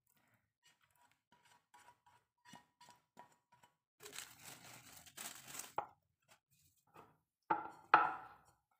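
Faint light clicks and scraping, then plastic cling film crinkling for about two seconds as it is peeled off a bowl of dough, followed by two loud, sharp knocks half a second apart near the end as the bowl is handled.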